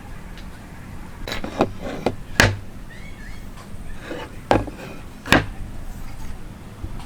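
Sharp knocks and clicks of wooden pieces being handled or tapped together, about six at uneven spacing. The loudest come about two and a half seconds in and again near five and a half seconds.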